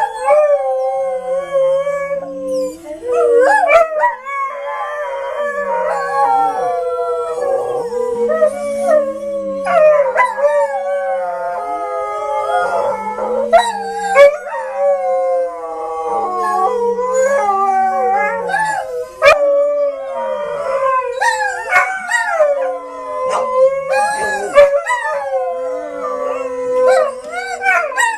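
Dogs howling, several overlapping howls wavering up and down in pitch, over a steady held tone.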